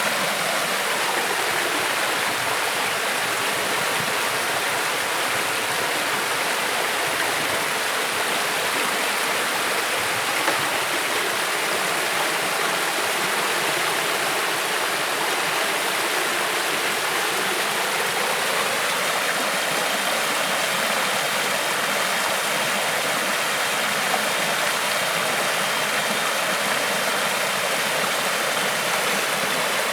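Creek water flowing, a steady, unbroken rush of running water.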